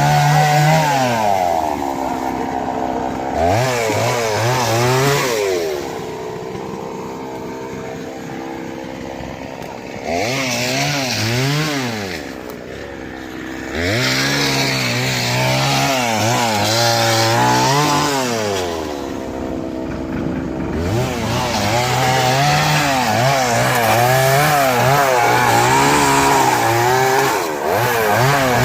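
Two-stroke chainsaw cutting into a large tree trunk, its engine pitch wavering under load. A few times it drops back to a lower, quieter speed before revving up again.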